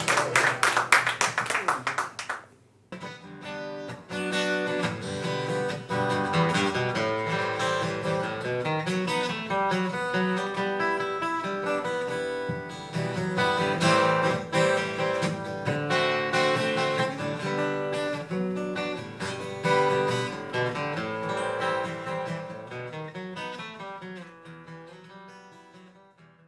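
Applause dying away over the first couple of seconds, then an acoustic guitar playing picked notes and chords on its own, fading out near the end.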